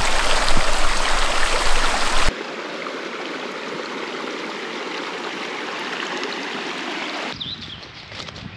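Shallow stream running over stones, heard close up as an even rushing of water. It is louder for about the first two seconds, then steady, and cuts off about seven seconds in.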